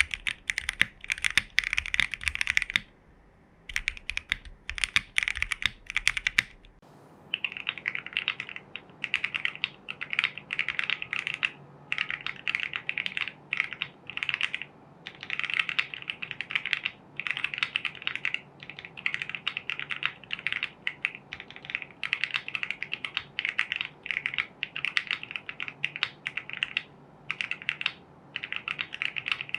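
Typing on a Fuji 75 mechanical keyboard with lubed, filmed Gateron Ink Box Black linear switches on a polycarbonate plate, capped with CRP Greek keycaps: fast, continuous runs of keystrokes broken by brief pauses, one about three seconds in and another around six to seven seconds in.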